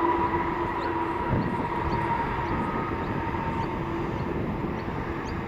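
General Electric CF6-80E1 turbofan engines of an Airbus A330-200 on landing, a steady whine over a broad rumble. Faint short chirps sound high above it.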